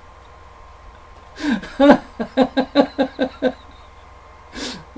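A man laughing heartily: a quick run of about eight 'ha' pulses, about five a second, starting about a second and a half in, then a short, noisy breath near the end.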